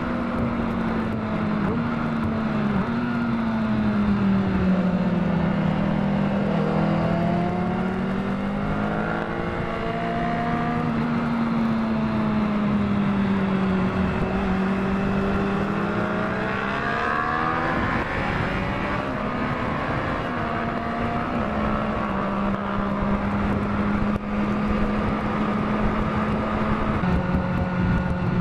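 Sport motorcycle engine heard from the rider's own seat while riding, its pitch sinking and rising again a few times as the bike slows and picks up speed, over a steady rush of wind.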